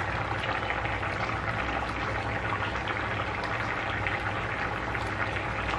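Chicken and potato broth boiling in a pan on the stove: a steady bubbling with small crackling pops.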